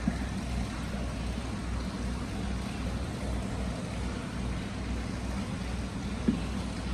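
Hot spring water flowing continuously into a tiled indoor bath, a steady wash of running water in the echoing bathhouse over a low rumble, with one brief tap near the end.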